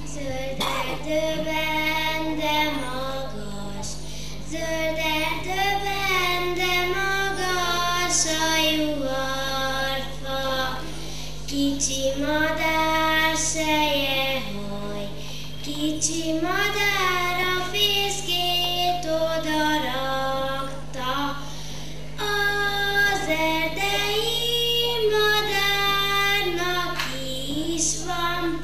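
A young girl singing a song alone into a microphone, in phrases with short breaks between them, over a steady low electrical hum.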